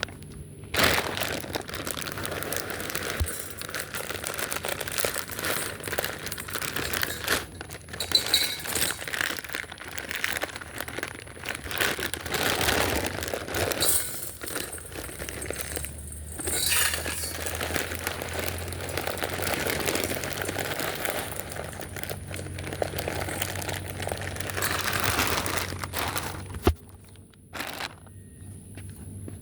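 Crinkling and rustling, as of packaging being handled, with many small clicks and light clinks. It stops abruptly near the end.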